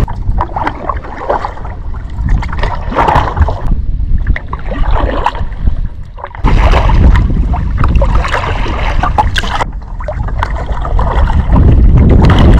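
Kayak paddle strokes splashing irregularly in the water, with gusts of wind rumbling on the microphone.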